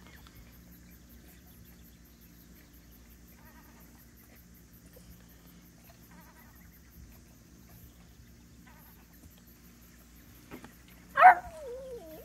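Small dog whining near the end: one high cry that falls in pitch and then wavers, a complaint at being left behind. Before it, only a faint low hum.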